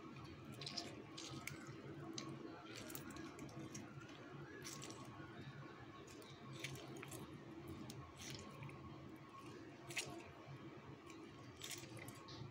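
Half a lemon squeezed by hand over a steel bowl of spiced chicken: faint squelching with scattered small ticks of juice and pulp, over a low steady hum.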